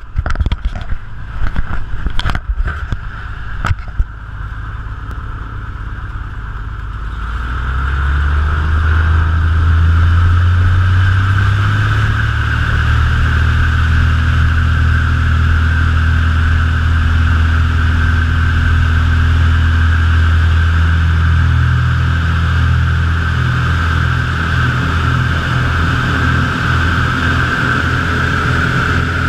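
Piper PA-25 Pawnee's piston engine and propeller heard from inside the cockpit, throttled up to full takeoff power about seven seconds in and running steadily loud through the takeoff roll and lift-off. A few sharp knocks sound in the first few seconds.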